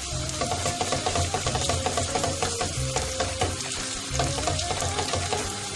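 Onions and tomato paste frying in oil in a pot, sizzling steadily while being stirred, with frequent small scrapes and clicks.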